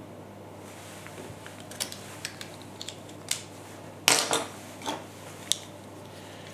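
Small plastic USB devices being handled on a wooden table: a scatter of light clicks and taps, with a louder clatter about four seconds in.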